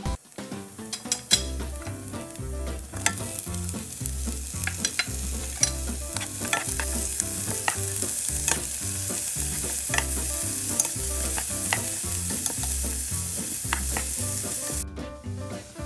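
Sliced onions and julienned carrots sizzling in hot oil in a nonstick pot while a wooden spatula stirs and tosses them, with many short scrapes against the pan. The sizzle briefly breaks off near the end.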